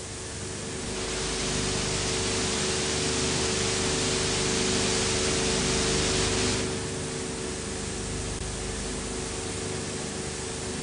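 Steady hiss of old recording or film-transfer noise with a constant low hum. The hiss swells about a second in and drops back abruptly after about six and a half seconds.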